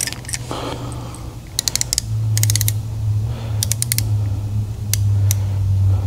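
Quick runs of small metallic clicks and ticks from handling steel valve stems and the setting fixture of a valve-guide comparator gauge, with a few single clicks later. A steady low hum comes in about two seconds in.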